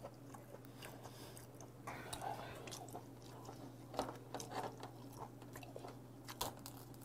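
Faint chewing and mouth sounds of someone eating seafood. About four seconds in come a few light clicks and taps as king crab legs are picked up from the platter, all over a steady low hum.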